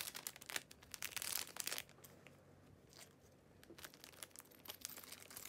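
Thin clear plastic bag crinkling as it is handled by hand. Crackles come close together for the first couple of seconds, go quiet for a moment with a single tick, then pick up again near the end.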